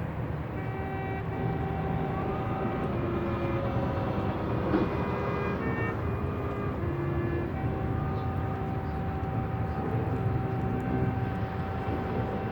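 Marching band playing a soft, slow passage of long held notes, with the chord shifting every second or two.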